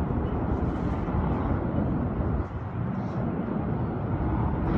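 Steady low outdoor rumble of wind and distant street traffic heard from a high observation deck, dipping briefly about two and a half seconds in; the fountain jets are not yet running.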